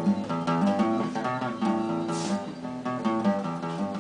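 Acoustic guitar strummed in a steady rhythm, with no singing over it.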